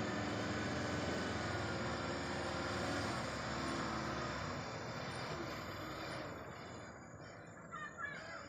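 Heavy truck engine and tyres running past, steady for several seconds and then fading away as it moves off.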